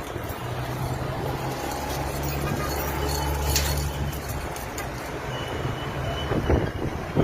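A motor engine running with a low, steady hum that is strongest in the first half and then fades, with scattered light clicks.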